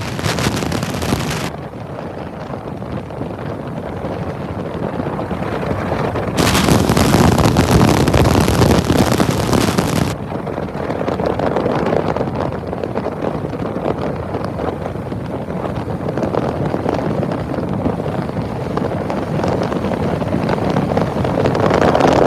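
Wind at highway speed, about 70 mph, rushing and buffeting an iPhone's microphone as a steady roar. It swells louder and hissier for about four seconds starting around six seconds in.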